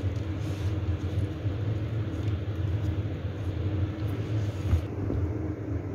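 Steady low rumble of background noise, with one short knock about three-quarters of the way through.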